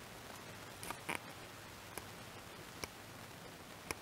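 Tabby cat lapping water from a plastic bowl: a few faint, irregular wet ticks and clicks over low room hiss.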